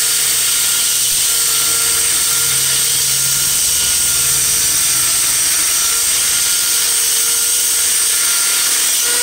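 Reeder Products 2x72 belt grinder running steadily, its three-phase motor on a variable-frequency drive, a steady whine over continuous belt hiss. It runs smoothly, showing no sign of a fault.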